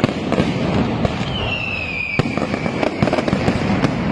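Mascletà fireworks: a dense, continuous barrage of firecracker bangs and crackling, with a falling whistle from a whistling firework between about one and two seconds in.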